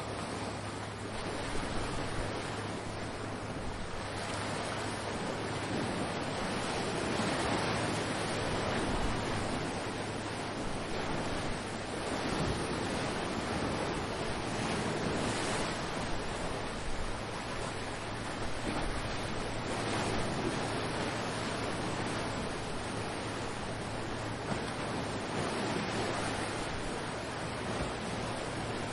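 Ocean surf: waves washing and breaking on the shore in a steady hiss that swells and eases every few seconds.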